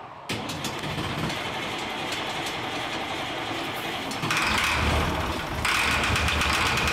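Engine being cranked and firing on starting fluid sprayed into its intake, a steady mechanical running sound that gets louder about four seconds in and again near the end.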